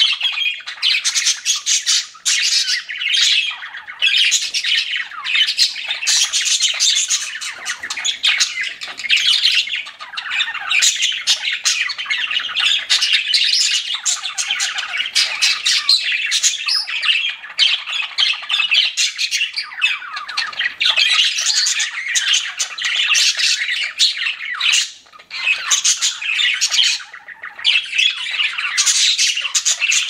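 A flock of pet budgerigars chirping and chattering, a dense stream of chirps and sharp clicks from several birds at once, with two brief lulls near the end.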